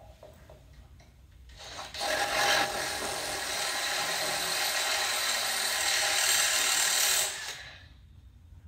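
A handheld power tool runs steadily for about five seconds, starting about two seconds in and stopping near the end.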